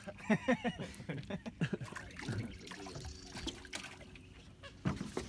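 Water dripping and trickling off a wet cast net held up ready to throw, under indistinct voices.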